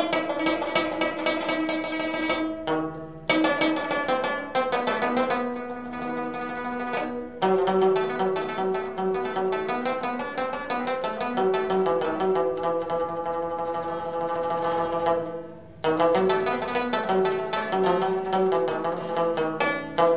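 Solo rabab played by plucking: quick picked notes in melodic phrases, broken by a few brief pauses between phrases.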